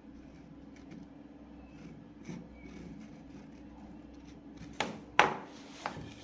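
Wooden pieces knocking together as they are fitted, three sharp knocks near the end with the second the loudest, over a faint steady hum.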